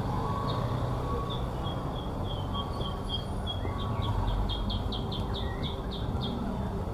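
Caged songbird chirping over and over, breaking into a quick run of chirps near the end, over the low rumble of street traffic and motorcycles.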